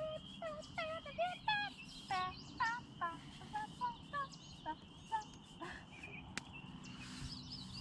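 A flock of geese honking, a run of short calls about two a second that fades out about five seconds in.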